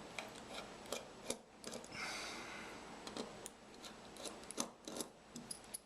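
Small screwdriver turning out the tiny screws of a dial caliper: faint, irregular little metal clicks with a short scrape about two seconds in.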